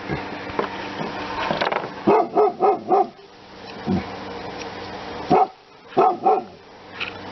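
A dog barking in short runs: four quick barks about two seconds in, then three more about five to six seconds in.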